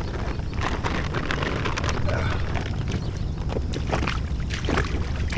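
Wind rumbling steadily on the microphone, with scattered short crunches, rustles and splashes as rubber boots step over a gravel shore into shallow water and a plastic bag is handled.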